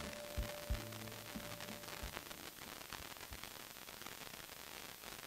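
Hiss and static of a weak, distant FM broadcast received by tropospheric propagation. The last few soft notes of a song die away in the first couple of seconds, leaving a gap of steady hiss.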